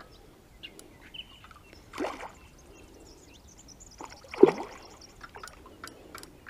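Two short splashes on the surface of a pond, about two and a half seconds apart, the second louder and sharper.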